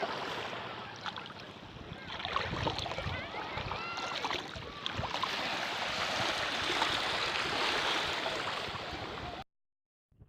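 Beach surf washing in as a steady hiss, with short high sliding sounds scattered over it. It cuts off suddenly near the end.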